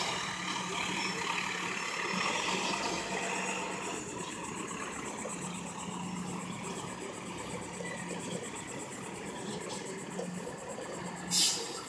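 A Top Select-Labrie recycling truck's diesel engine running as it drives off, a steady low hum that slowly grows fainter. Near the end comes a short, sharp air-brake hiss.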